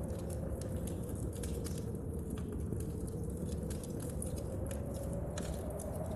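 Wood fire crackling with many small, sharp, irregular pops over a steady low rumble of storm wind and rain. A faint wind howl slowly dips and rises in pitch.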